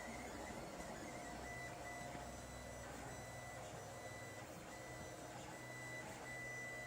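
LulzBot TAZ 5 3D printer's stepper motors whining as the print head moves: a steady high tone that breaks off and resumes several times, over a low hum.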